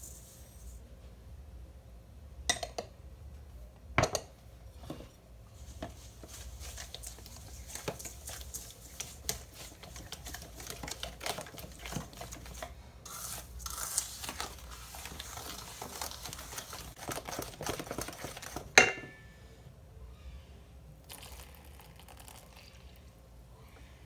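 A kitchen utensil stirring and scraping in a mixing bowl: a few sharp taps, then a long stretch of busy irregular scraping, ending in one loud knock against the bowl.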